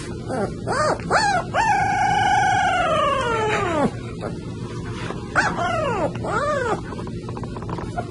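A puppy howling: a few short yelps that rise and fall in pitch, then one long howl held steady for about two seconds before its pitch drops away, then three more short yelps.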